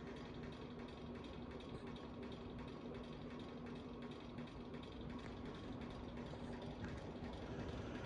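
Bahama 52-inch hugger ceiling fan running: a steady motor hum at one pitch under the airy rush of the spinning blades, with faint light clicks.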